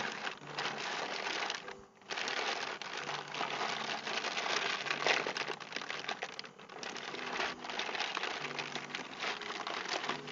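Plastic packaging crinkling and rustling as it is handled and unwrapped, with a couple of short pauses.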